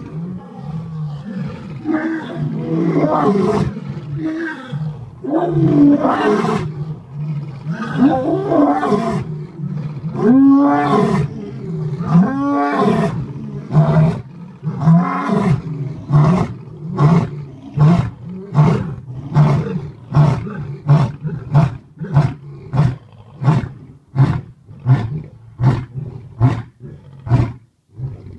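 Male lion roaring at close range: a few long roars that rise and fall in pitch, then a run of short grunting calls, about one a second, that come steadily quicker toward the end.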